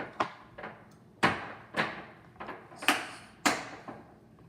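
A spoon stirring slime, clacking and scraping against the mixing bowl in about seven sharp strokes, roughly one every half second.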